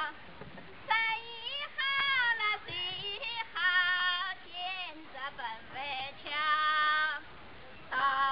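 A woman singing a traditional Chinese song unaccompanied in a high voice. She sings short phrases of long-held notes that bend and waver in pitch, with brief pauses between them.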